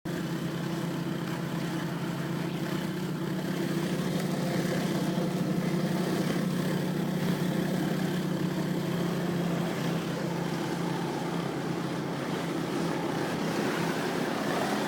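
Pressure washer running steadily: a constant engine drone under the hiss of the high-pressure spray on concrete.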